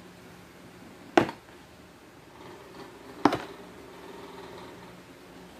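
Latches of a hard black plastic carrying case snapping open, two sharp clicks about two seconds apart, with faint handling of the case between them.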